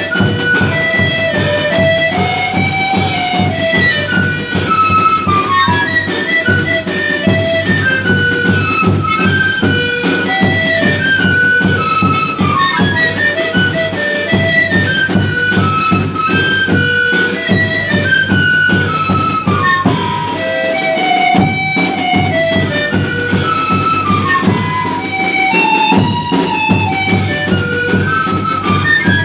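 A tarqueada ensemble playing: several tarkas (Andean wooden duct flutes) play a repeating melody together in parallel lines, over a steady beat of bass drum, snare drum and crash cymbals.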